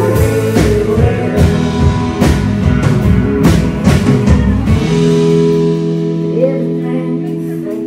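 Live rock band playing an instrumental passage: electric guitar over a drum kit with cymbal hits. About five seconds in the drums stop and a held electric-guitar chord rings out, changing to a new chord near the end.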